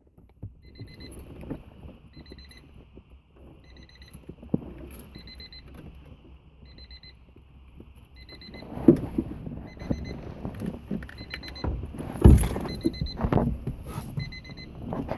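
A car's electronic warning chime, the 1990 Honda Civic Si hatchback's key-in or door-open reminder, beeps about once a second. Over its second half come scattered knocks and handling noise, with one loud thump.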